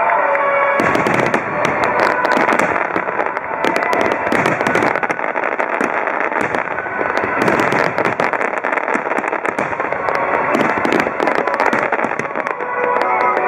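Wide starmine fireworks display: a dense, rapid salvo of shells and comets bursting, many overlapping bangs and crackling. Its accompanying music is heard briefly at the start and again near the end, where the bursts thin out.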